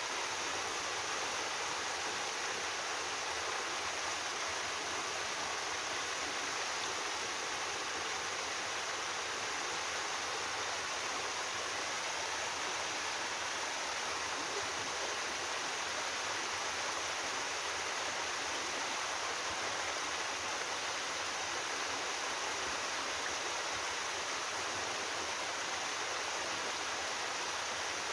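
Three-tier sliding waterfall in a mountain stream: water pouring steadily over rock slabs, an even unbroken rush.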